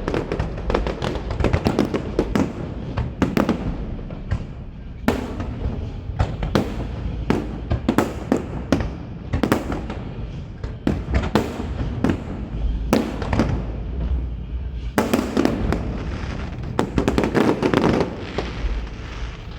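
Fireworks display: aerial shells bursting one after another, with sharp bangs often coming several in quick succession over a steady low rumble.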